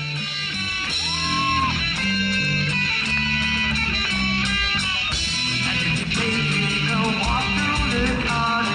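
Rock band playing loud, with electric guitars over a drum beat and a guitar bend about a second in.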